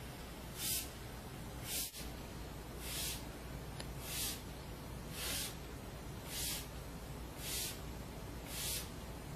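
A short hiss repeating evenly about once a second, over a steady low hum.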